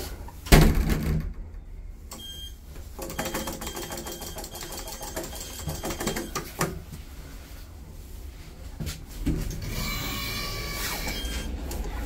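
A loud thump about half a second in, then rapid mechanical clicking with a steady whir inside a Kone lift car, from the lift's door and drive machinery as the car is set going.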